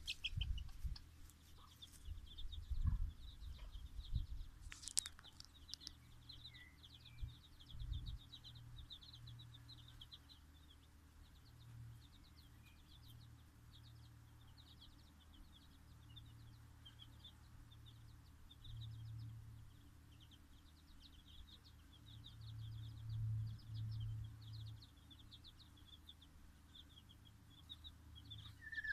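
Bantam chicks peeping, a steady run of short, high, rapid peeps, with bursts of low rumble now and then.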